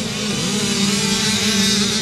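Several racing motorcycle engines running together, their pitch rising and falling as they rev over a steady drone.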